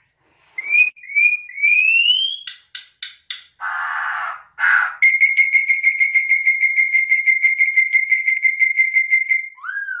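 Black-and-yellow oriole singing: a few short rising whistles, then a long, steady, rapidly pulsed whistled trill lasting about four and a half seconds that ends in a quick slurred note.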